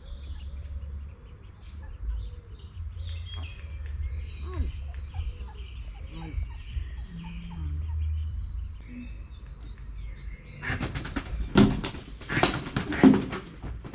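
Ducklings peeping faintly. About ten seconds in, the hen duck breaks into a burst of loud, rapid calls.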